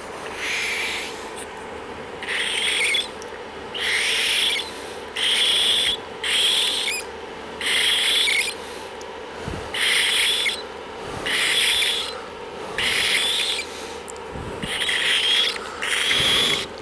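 Cockatiel chick giving about a dozen raspy, hissing calls, each under a second, about one a second. The owner takes them for normal, with no sign of breathing trouble after the chick's dunking.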